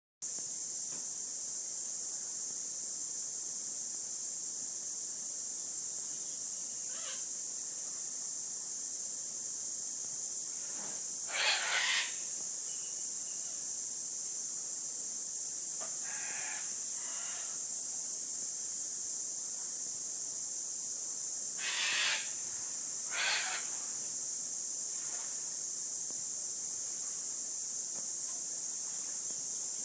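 A steady, high-pitched hiss, with several short, soft rustling sounds scattered through it.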